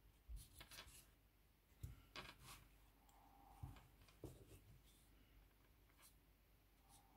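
Near silence, with faint rustles and small scattered clicks of yarn and a crochet hook being worked through tight stitches.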